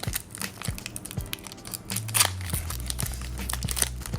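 Foil trading-card booster pack wrapper crinkling and tearing as it is opened by hand: a string of quick, irregular crackles.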